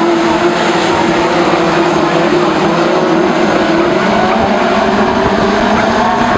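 Several BriSCA F2 stock cars racing on the oval together. Their engines run hard and overlap, each rising and falling in pitch as the cars accelerate and lift round the bends.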